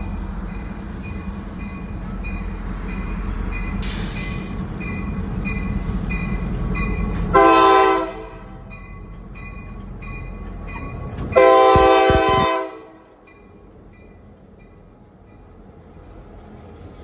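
Norfolk Southern GP38 diesel locomotive passing, its engine rumble loud for the first seven seconds and then fading away, with two blasts of its multi-chime air horn: a short one about seven seconds in and a longer one near the twelve-second mark. A bell rings steadily about twice a second under it, and a short hiss comes about four seconds in.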